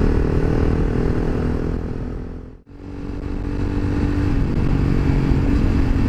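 Honda CBR300R's single-cylinder engine running at a steady cruise under rushing road and wind noise. The sound fades to a moment of silence about two and a half seconds in and then fades back up.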